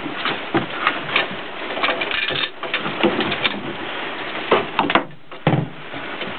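Clicks, scrapes and knocks of a boat speed sensor being pushed and twisted into its through-hull fitting by hand, over a steady hiss, with a heavier knock about five seconds in.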